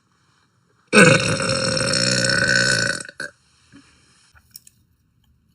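A woman's long burp lasting about two seconds, starting about a second in, followed at once by a brief second burst.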